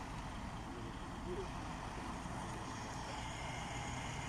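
Truck-mounted crane's engine running steadily while it holds a boat on its hook, with a constant low rumble.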